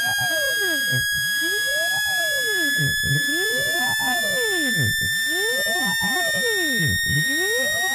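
Synthesized speaker-cleaning tone, played to vibrate water and dust out of a phone speaker. A loud, steady high tone with overtones creeps slowly upward in pitch, under a lower tone that sweeps up and down about once a second.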